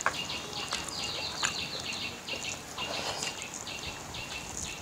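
A small bird chirping in quick runs, several short high chirps a second, each dropping in pitch. A few faint clicks sound under it.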